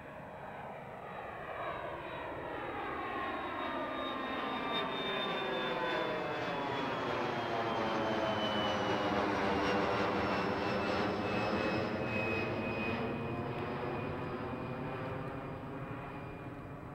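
Bombardier CRJ200's two rear-mounted General Electric CF34 turbofans as the jet passes overhead climbing out on departure. The jet noise swells to its loudest about ten seconds in and then fades, with a high fan whine sliding steadily down in pitch as it passes.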